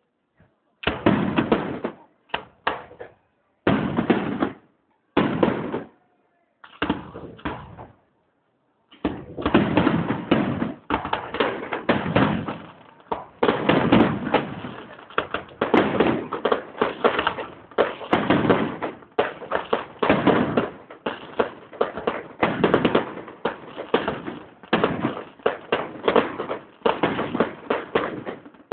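Fireworks going off: a string of separate bangs with gaps between them, then from about nine seconds in a dense, rapid barrage of bangs and crackling that does not let up.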